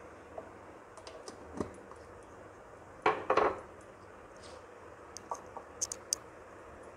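Light clinks and clatter of tableware on a serving tray: a plate, a glass bowl and a spoon. There is a cluster of louder knocks about three seconds in and a few faint ticks either side.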